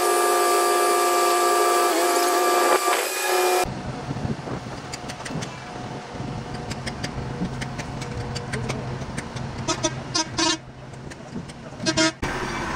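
A vehicle horn sounding a loud, steady chord of several held tones that cuts off suddenly after about three and a half seconds. Then comes a background of traffic noise with a low engine hum, scattered clicks and short toots near the end.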